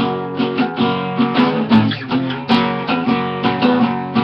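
Acoustic guitar strummed in a steady rhythm, about three strokes a second, the chords ringing on between strokes.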